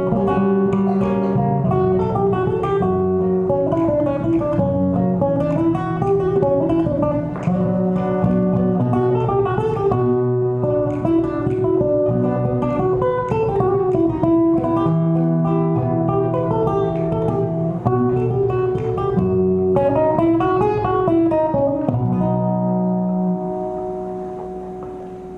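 Two flamenco guitars playing together: quick picked runs and strummed chords. Near the end they land on a held chord that rings and fades away.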